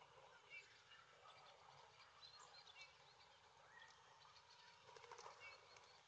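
Faint outdoor ambience: scattered short, high bird chirps over a soft hiss, with a few faint taps or rustles near the end.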